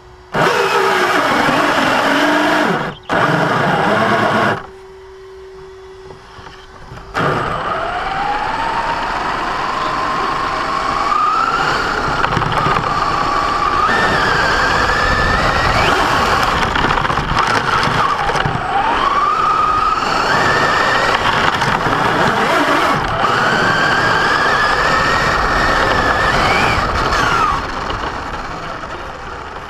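Basher Nitro Circus 1/10 4x4 RC truck accelerating with a loud grinding from its drivetrain: two short bursts, then a long run with the motor's whine rising and falling with the throttle. The grinding comes only under acceleration, and setting the pinion-to-spur gear mesh has not cured it.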